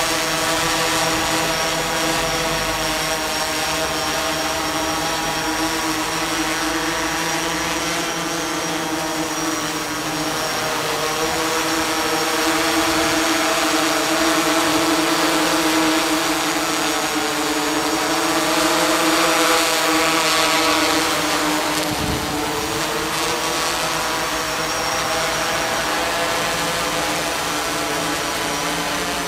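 Electric octocopter hovering overhead with a hanging bottle payload, its eight propellers giving a steady buzzing drone whose pitch wavers slightly as the motors adjust. It grows a little louder in the middle.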